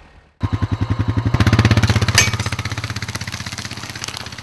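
Small ATV engine running with a fast pulsing beat as the quad passes close by. It starts suddenly, swells, then fades, with a sharp clack about two seconds in.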